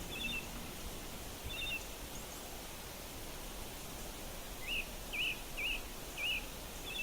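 A songbird calling in short, repeated squiggly chirps over a steady outdoor hiss: a couple of calls in the first two seconds, then a quick run of about five near the end.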